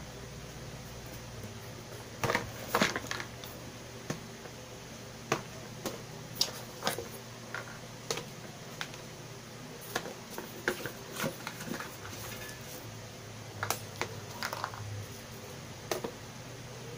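Irregular clicks, taps and rustles of a power adapter brick and its cables being lifted out of a cardboard box and set down on a plastic projector casing, over a steady low hum.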